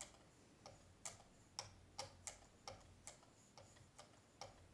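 Faint, light ticks, about two to three a second, as a 1-micron 3M lapping-film hone is stroked back and forth across a pocket-knife blade clamped in a Work Sharp Precision Adjust sharpener. The fine film itself makes almost no sound while polishing the edge.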